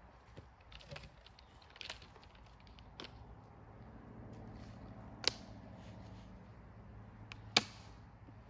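Plastic bucket of loose, dry mineral mix being tipped and shaken out onto dry leaf litter: faint rustling and light clicks, with two sharp knocks, one about halfway through and one near the end.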